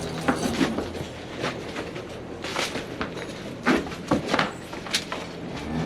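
Irregular knocks and clatters, as of cows moving in their stalls, over a steady low hum.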